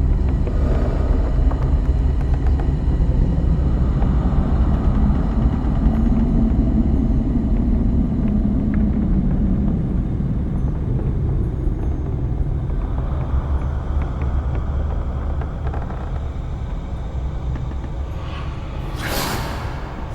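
Deep, steady rumbling drone of a horror ambience soundscape, swelling in its middle range partway through and easing off slowly. A brief loud rush of noise comes near the end.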